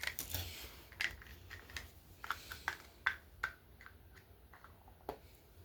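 Small toy packaging being handled and opened: irregular crinkles and sharp little clicks, a few louder snaps among them.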